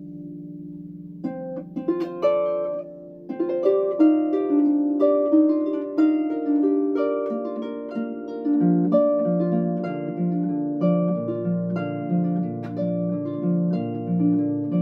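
Solo harp playing: a low chord rings and fades, then plucked notes start about a second in and build into a flowing melody, with a repeating low bass figure under it from a little past halfway.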